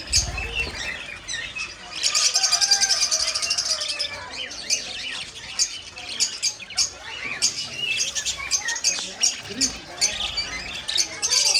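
A large flock of budgerigars caged together, chattering with many sharp chirps and squawks. Dense warbling swells from about two to four seconds in and again near the end. A brief low thump at the very start.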